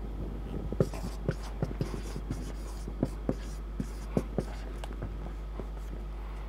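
Marker pen writing on a whiteboard: a string of short, irregular taps and strokes as letters are formed, over a steady low hum.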